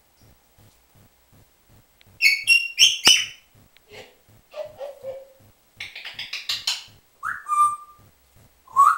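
African grey parrot calling in a string of varied sounds: a few loud, shrill calls about two seconds in, then lower hooting notes, a burst of scratchy chatter, and a short whistle that rises and then holds near the end. A faint, even ticking runs underneath.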